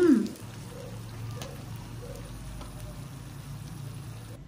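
Hot oil sizzling steadily as spring rolls deep-fry in a pan, with a low hum beneath it.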